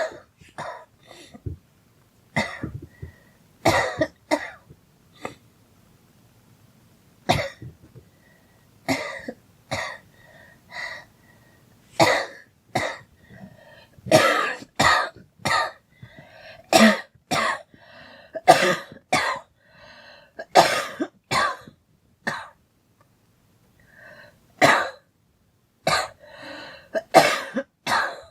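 A girl coughing over and over: many short, sharp coughs in irregular bunches with brief pauses between them.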